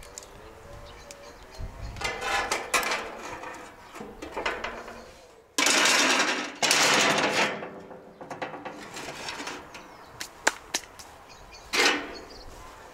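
Long metal skewers clattering and scraping against the grate of an oil-drum barbecue grill in several bursts, with a few sharp metallic clinks near the end.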